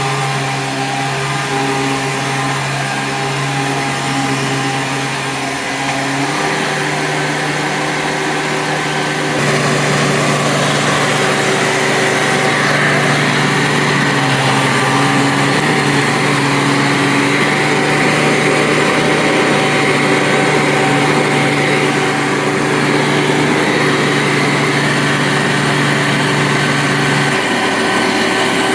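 2002 Hoover Sprint U5068-900 12-amp upright vacuum running with a steady motor hum, its pitch shifting about six seconds in and again about nine seconds in.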